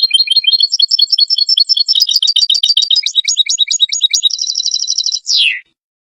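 European goldfinch singing: a fast, unbroken run of twittering chirps that quickens into a rapid trill near the end and finishes with a falling slur, stopping about five and a half seconds in.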